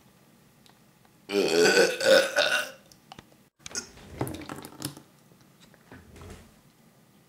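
A man forcing out a burp: one loud, long burp of about a second and a half, starting about a second in, followed by a few quieter sounds.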